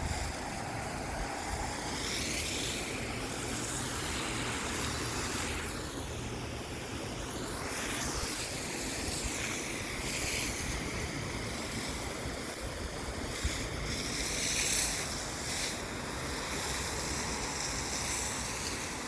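Wind rushing over the microphone, a steady noisy hiss that swells briefly now and then.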